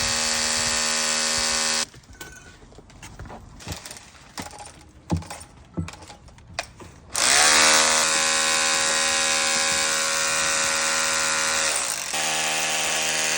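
Electric power tool's motor running at a steady whine, then shutting off about two seconds in. After a few seconds of quieter knocks it spins up again with a rising whine, and near the end its pitch drops and holds lower.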